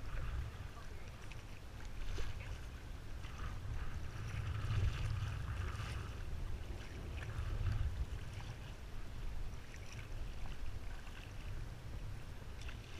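Double-bladed kayak paddle dipping and splashing in repeated strokes, with water swishing along the hull. A steady low wind rumble runs on the microphone underneath.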